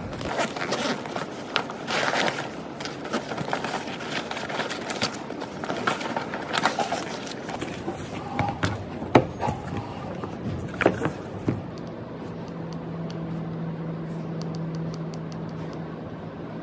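Things being taken out of a backpack and put down on a wooden table: rustling with scattered knocks and clicks. After about twelve seconds the handling stops and a steady low hum remains.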